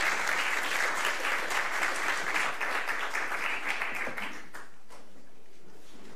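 Audience applauding, a dense crackle of many hands clapping that fades away about four and a half seconds in.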